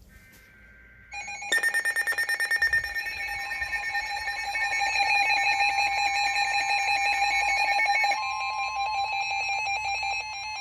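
Several NOAA weather radios going off together, a stack of overlapping electronic alarm tones with rapid beeping about a second in. One radio holds the steady 1050 Hz warning alarm tone, which signals a severe thunderstorm warning being issued.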